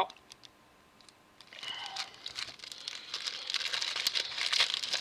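Plastic packaging crinkling and rustling as it is handled, starting about a second and a half in.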